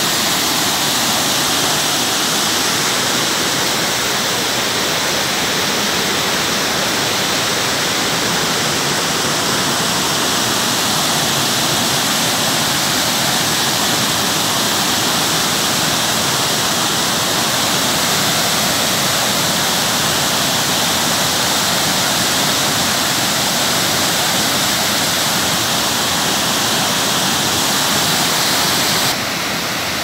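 Water of a wide, multi-tiered waterfall cascading over rock slabs: a loud, steady rush of falling and churning water. It becomes a little quieter about a second before the end.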